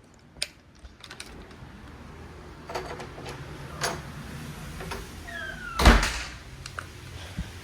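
Handling noises: a scattered series of clicks and knocks, a brief squeak, then one heavy thump about six seconds in.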